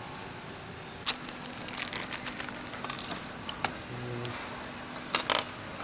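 Small metal parts and tools clinking and tapping against one another in a few sharp clicks, the loudest about a second in and a close pair near the end.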